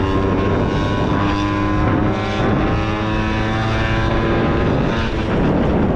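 Honda Topic moped's small engine running steadily under throttle at cruising speed, its pitch holding nearly level, with wind rumble on the microphone.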